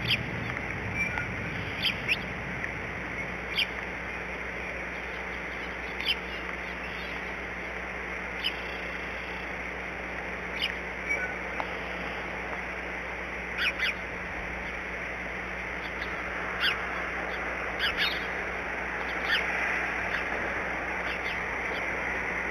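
Steady rain hiss with short, high bird chirps every second or two, often in pairs.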